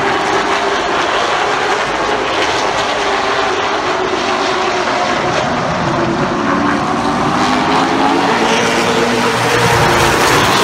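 A pack of short-track stock cars racing past on a paved oval, several engine notes rising and falling over one another, getting louder near the end as the cars pass close.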